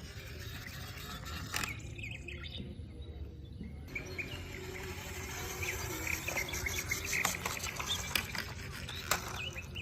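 Small birds chirping again and again over a low steady rumble, with a couple of sharp clicks.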